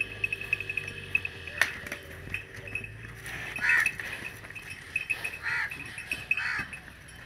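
A farm animal calling three times in short bleat-like calls, the first about three seconds in and the loudest. A steady, rapid high-pitched chirping runs underneath, and there is a single sharp click about a second and a half in.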